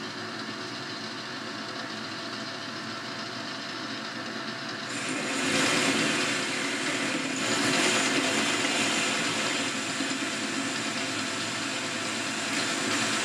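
Boxford metal lathe running with the spindle turning. About five seconds in the tool starts taking a turning cut on the metal blank, and a louder, rougher cutting noise joins the machine's steady hum.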